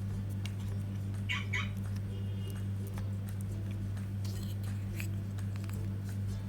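Steady low electrical hum, with scattered small clicks and taps from handling small plastic parts, and two short high chirps about a second and a half in.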